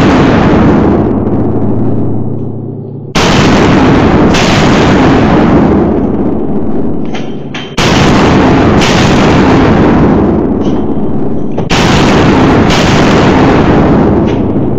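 Shadow Systems MR920 Elite 9 mm striker-fired pistol fired in slow aimed shots, about one every four seconds, three in all. Each sharp crack is followed by a long loud tail that dies away over several seconds.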